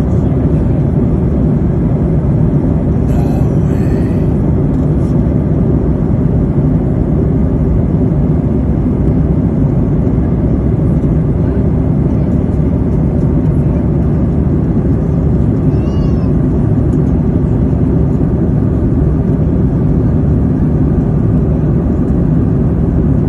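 Steady low roar of aircraft cabin noise, with a brief faint high chirp about sixteen seconds in.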